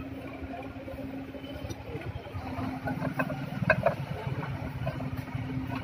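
An engine idling steadily in the background, a low even rumble with a constant hum. A few light metal clicks come about three to four seconds in as a Massey Ferguson 241 brake friction disc is seated by hand on its splined hub.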